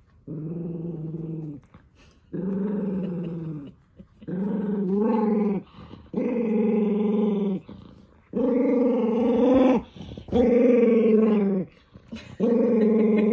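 Toy poodle growling in a long series of drawn-out growls, about seven of them with short breaks between, getting louder as it goes on: an angry protest while socks are being pulled onto its paws.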